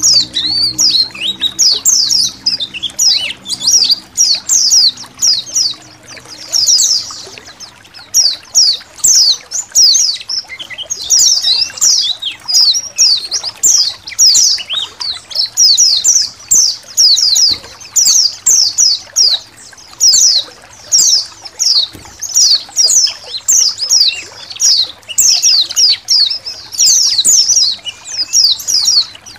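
A colony of white-eyes (pleci) chattering together, a dense, continuous stream of rapid, high, down-slurred chirps from many birds at once, over a background of trickling water.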